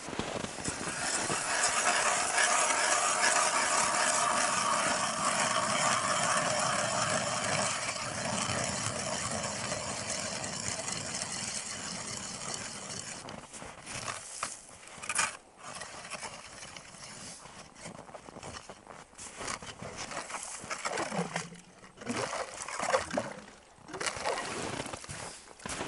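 Hand ice auger's blades grinding down through lake ice: a steady crunching scrape for the first dozen seconds or so, then breaking up into shorter scrapes and knocks.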